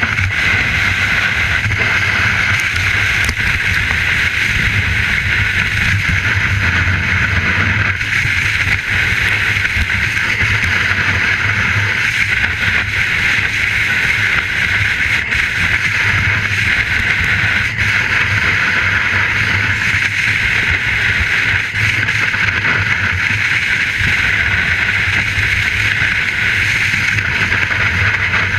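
Steady scraping hiss of a sled sliding over packed snow, with a low rumble of wind on the camera.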